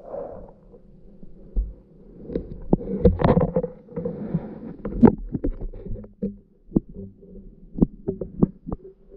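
Muffled thumps and sharp knocks over a steady low hum, as picked up by an underwater camera. The knocks cluster about three to five seconds in, then come singly and more sparsely near the end.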